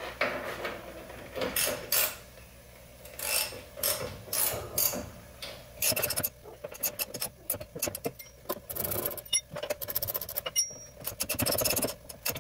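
A hand ratchet clicking in quick runs, with clinks and scrapes of tools on metal, as a sway bar link nut on the front suspension is tightened. The clicking is sparse at first and comes in quick runs from about halfway on.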